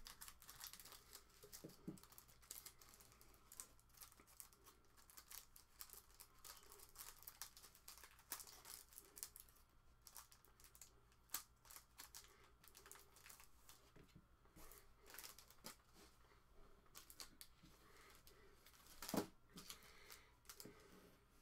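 Faint crinkling, rustling and small clicks of trading-card pack wrappers and clear plastic card sleeves being handled, with one louder knock near the end.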